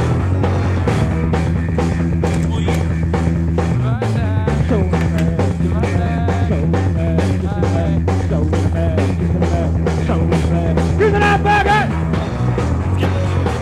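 Rock music with drums, bass and guitar, a bending vocal or lead line rising above it near the end.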